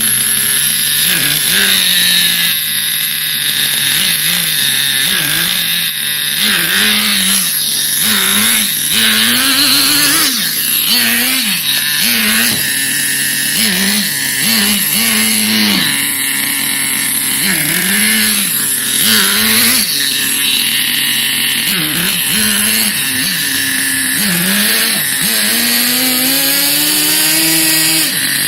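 A three-wheeled radio-controlled car's motor running and revving up and down over and over as it is driven, with a long rising rev near the end.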